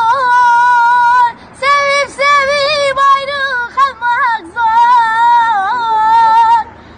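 A boy singing a Turkish song unaccompanied in a high voice, holding long wavering notes with a few short breaths between phrases.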